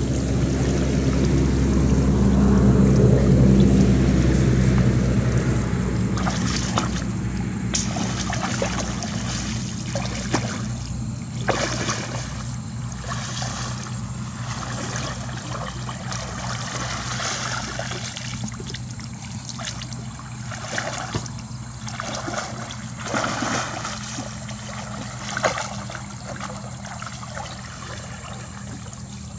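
Shallow water splashing, sloshing and trickling as a woven bamboo fishing basket is dipped and dragged through a flooded rice field and lifted out to drain, with many short splashes from about six seconds in. A steady low hum runs underneath, loudest in the first few seconds.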